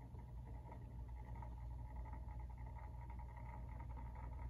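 Motorised display turntable running: a faint, steady hum with a thin whine.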